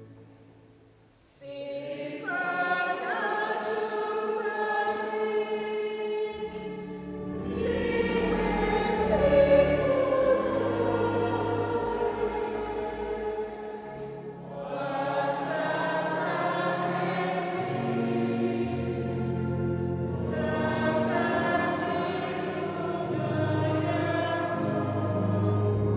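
A choir singing a slow hymn in long, held notes over a low sustained bass; the singing starts about a second and a half in and breaks briefly around the middle before going on.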